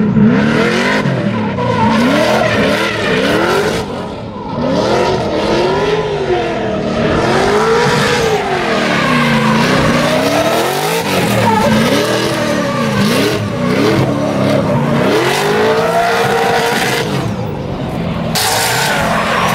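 Drift car's engine revving hard, its pitch swinging up and down about once a second as the throttle is worked through a slide, over the screech of rear tyres spinning and smoking.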